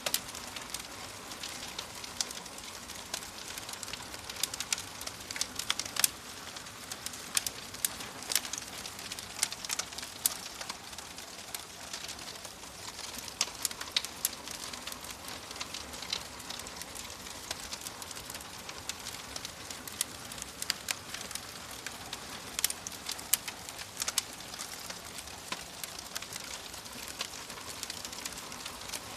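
Wood fire crackling in a fireplace: irregular sharp pops and snaps over a steady soft hiss.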